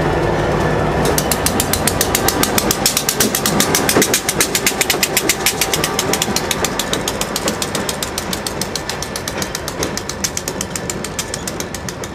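A freight train's tank cars rolling past. About a second in, a rapid, even ringing of a grade-crossing warning bell starts and carries on under the low running of the CSX diesel locomotive as it nears the crossing.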